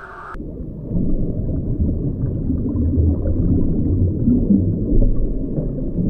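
Underwater ambience: a loud, deep, muffled rumble and gurgle with no high sounds in it, swelling about a second in.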